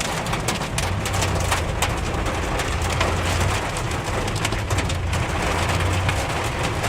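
Heavy rain and hail pelting a moving car, heard from inside: a dense patter with many sharp ticks over a steady low rumble of engine and road.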